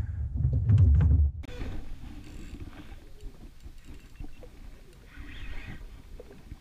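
Wind buffeting the microphone as a loud low rumble for about a second and a half, then, after a cut, a much quieter stretch with small clicks and handling noises from an angler's fishing rod.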